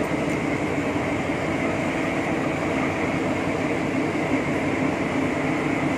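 Locomotive hauling a train of ballast hopper wagons slowly past, giving a steady drone of engine and wheels on rail.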